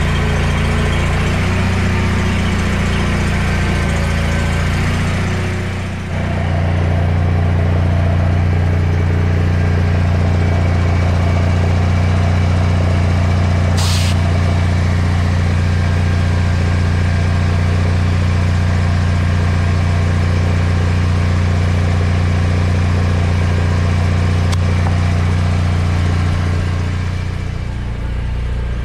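Toro Wheel Horse 520H garden tractor engine running steadily, just restarted after years of sitting. The sound dips briefly about six seconds in, then settles louder. A short sharp sound cuts in about halfway.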